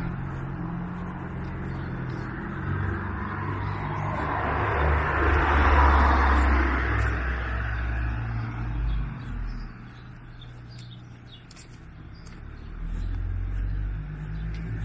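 A car drives by on the road. Its engine and tyre noise swell to a peak about six seconds in and then fade, over a low traffic rumble, and the sound rises again near the end.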